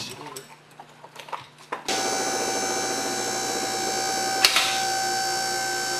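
A few faint clicks and knocks, then a machine's steady hum and whine starts abruptly about two seconds in and holds at an even pitch, with one sharp click partway through.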